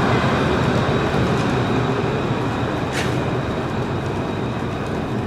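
Alstom Citadis 403 tram running along street track, a steady rumble that fades slowly as it pulls away, with a brief click about three seconds in.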